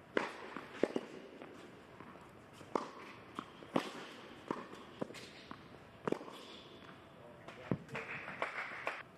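A tennis rally on an indoor hard court: the ball is struck by the rackets and bounces on the court, giving a string of sharp pops roughly every half second to a second. The rally ends when the point is won.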